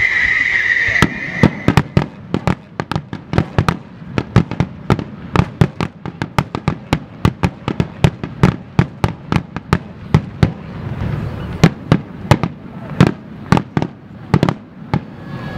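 Finale barrage of aerial firework shells bursting in rapid succession, sharp bangs about three a second for some fourteen seconds. The bangs begin about a second in, after a steady high whistle.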